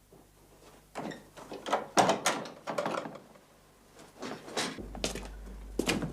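A quick run of knocks and thuds, loudest about two seconds in, with a few more near the end.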